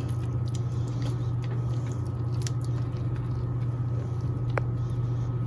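Hands working a wet biscuit dough of flour, buttermilk and Crisco in a bowl: soft squishing with faint ticks and one sharp click about four and a half seconds in, over a steady low hum.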